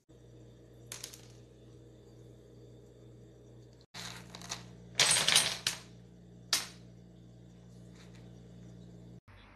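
Dominoes clicking and clattering on a hardwood floor as a cat walks through rows of them stood on end and knocks them over: a single click about a second in, then a cluster of clatters about four to six seconds in, loudest around five seconds, and one more click shortly after. A faint steady hum lies underneath.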